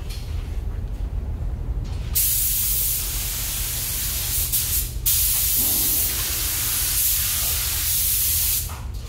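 Compressed-air paint spray gun hissing while it sprays a finish coat. It comes in two long passes, about three seconds each, with a brief break about five seconds in and a stop near the end. A steady low hum of booth ventilation runs underneath.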